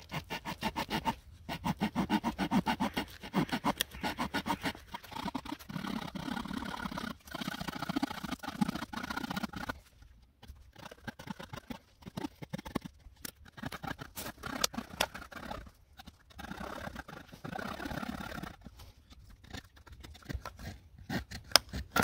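Victorinox Swiss Tool's wood saw cutting through a branch about 3 cm thick: rapid back-and-forth saw strokes in runs of a few seconds, with short pauses between them.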